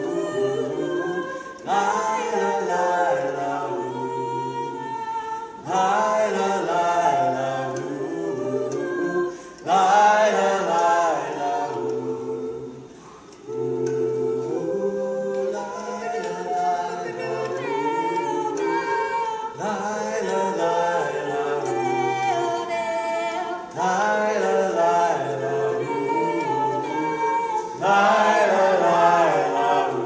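Four voices singing a cappella in close harmony without words, in sustained phrases of about four seconds that each start abruptly.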